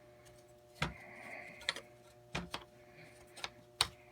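Small steel parts clicking and knocking against each other, about six sharp, irregular clicks, as a steel handguard bracket is handled and fitted onto an AK-pattern rifle.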